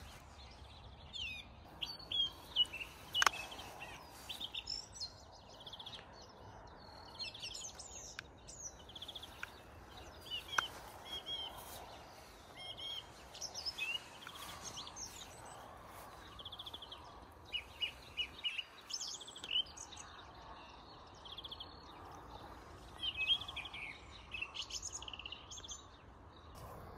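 Songbirds chirping and singing, many short calls and trills one after another, over faint steady outdoor background noise.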